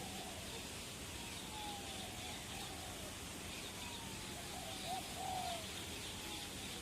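Birds calling in an aviary: a few falling calls and a louder group of calls about five seconds in, with faint high chirps over steady background noise.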